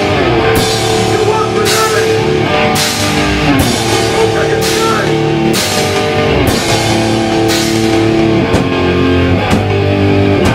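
Hardcore band playing live: loud distorted guitars held on sustained chords over drums, with a crash cymbal hit about once a second.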